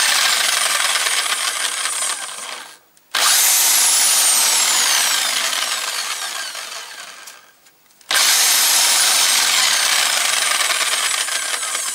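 Electric drill motor running in three runs, spinning a glass jar mounted on its chuck. It stops briefly twice, about 3 and 8 seconds in, as the spin direction is reversed. Each run starts loud and fades gradually before the drill cuts out.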